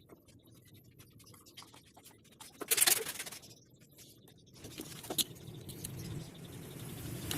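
Small handling sounds: scattered light taps and clicks, one brief scrape about three seconds in, and a sharp tick a little after five seconds, over a faint steady hiss that builds in the second half.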